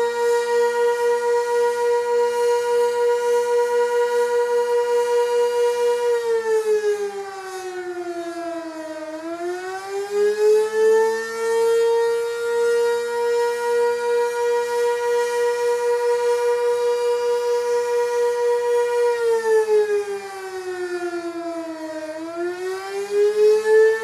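Sentry 16V1T-B sixteen-horn outdoor warning siren sounding its attack signal. It holds a steady high tone, then twice dips lower and climbs back, the dips about 13 seconds apart. Its level pulses a few times a second.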